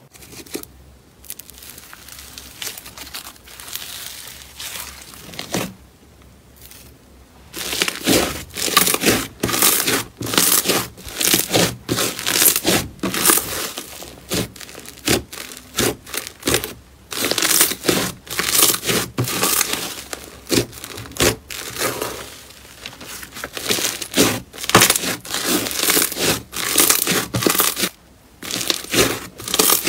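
Thick, grainy slime being squeezed and pulled apart by hand, giving crackling, tearing crunches. It is quieter at first, then from about seven seconds in comes a dense run of sharp crunches, roughly one or two a second.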